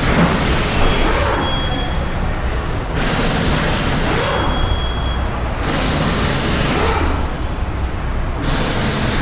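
Compressed air hissing in four separate bursts, each about a second long, over a steady low hum of workshop machinery.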